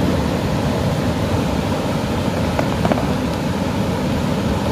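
Steady rushing background noise, heaviest in the low end, with a few faint clicks about two and a half to three seconds in.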